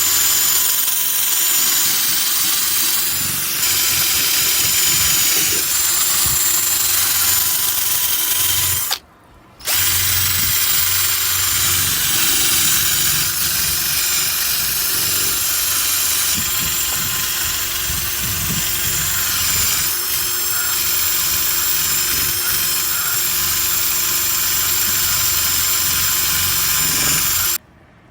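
Handheld electric polisher running with compound against a car bumper, buffing out taxi scrape marks. It stops for about half a second about nine seconds in, restarts, and cuts off near the end.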